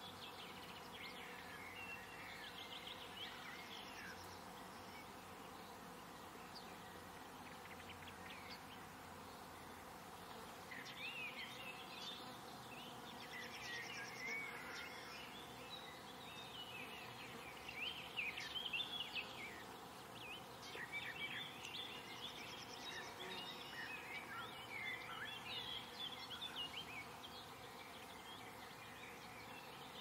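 Small songbirds chirping and singing in quick short phrases, busiest from about a third of the way in, over a faint steady hum.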